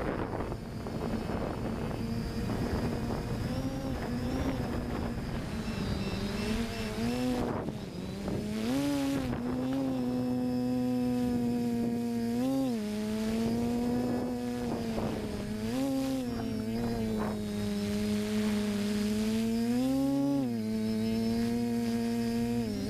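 FPV multirotor drone's electric motors and propellers humming steadily, rising briefly in pitch several times as the throttle is pushed. Wind buffets the microphone over the first few seconds.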